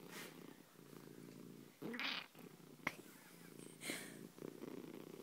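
Domestic cat purring steadily and faintly, close up, with one brief louder sound about two seconds in.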